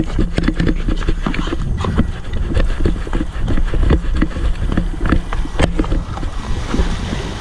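Handling noise from a moving camera: irregular knocks, clicks and rustling over a heavy low rumble of wind buffeting the microphone.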